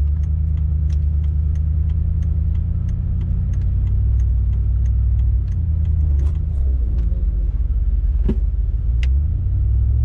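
Pickup truck driving on an icy road, heard from inside the cab: a steady low rumble of engine and tyres, with faint regular ticking throughout, the engine note wavering in the later part and a single thump about eight seconds in.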